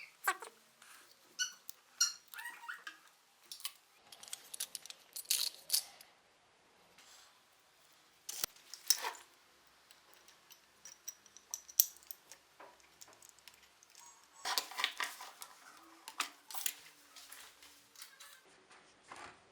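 Irregular clicks, taps and light metallic clinks of small metal parts and tools being handled, with a few brief ringing tones and busier clatter about five seconds in and again near the end.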